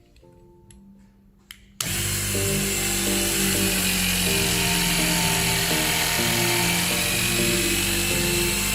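Battery-operated hydraulic cable cutting tool's electric motor and pump starting about two seconds in and running steadily with a high whine as the cutter head closes on a cable, over background music.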